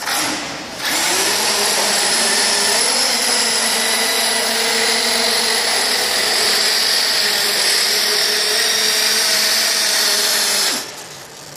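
Electric Losi RC truggy's motor and drivetrain whining under heavy load as it tows a man of about 85 kg on a wheeled dolly, with the dolly's small wheels rolling on concrete. A short burst of throttle comes first, then a steady pull of about ten seconds that stops shortly before the end.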